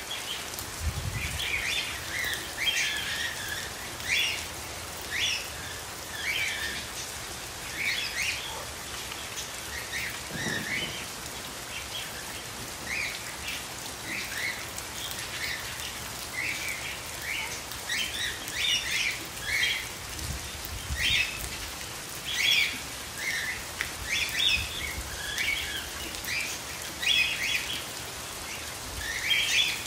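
Steady rain falling, with short high bird chirps coming again and again every second or so.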